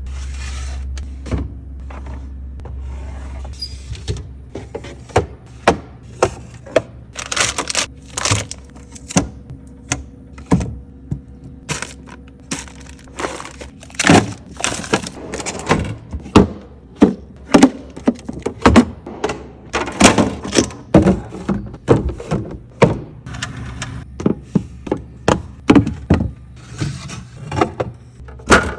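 Food containers and jars knocking, clinking and thunking as they are handled and set down while a refrigerator is restocked, with short scraping or rustling sounds in between. The knocks grow busier and louder about halfway through.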